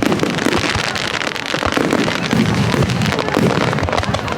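Aerial fireworks bursting close overhead: a dense, continuous crackle of many small reports with heavier bangs mixed in, with strong wind noise on the microphone.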